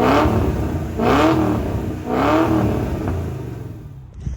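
Car engine revved in three quick throttle blips about a second apart, each rising and falling in pitch, with the sound dying away near the end.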